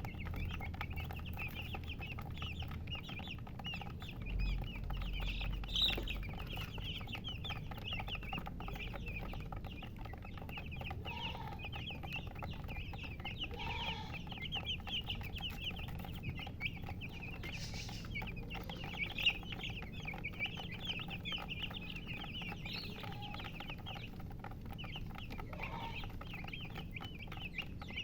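A brood of baby chicks peeping continuously: many short, high chirps overlapping, with a hen's lower clucks now and then.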